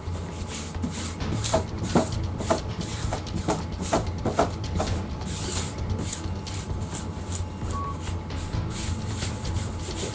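Self-adhesive linen poster being peeled off its paper backing and smoothed down by hand onto sheet metal: paper rustling and crackling with hand rubbing. There is a run of short squeaks in the first half.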